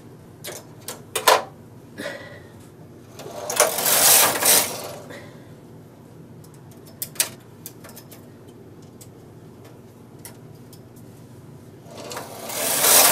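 Knitting machine carriage pushed across the metal needle bed twice, a rasping whir lasting about a second and a half each time: once about three and a half seconds in and again near the end. Before the first pass come a few sharp clicks of latch needles being moved by hand.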